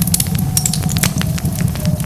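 Wood fire crackling: many small, irregular sharp pops over a steady low rumble of flames.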